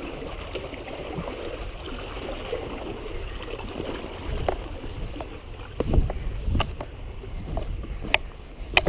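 Footsteps on riverbank rocks and dirt over a steady hiss of wind and water, with a heavy thump about six seconds in and a few sharper knocks near the end.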